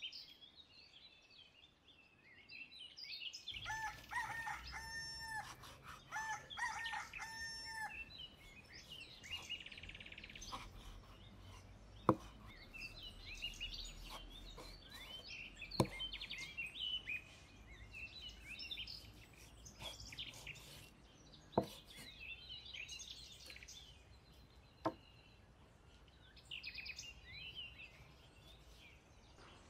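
A rooster crowing about four seconds in, with small birds chirping throughout. A few sharp knocks, one at a time, of a cleaver on a wooden chopping board come later.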